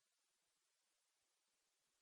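Near silence: a pause between spoken sentences, with only a faint noise floor.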